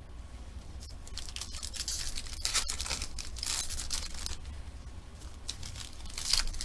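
Plastic wrapping on sports card packs being torn and crinkled, in several rustling spells, loudest about two and a half seconds in and again near the end.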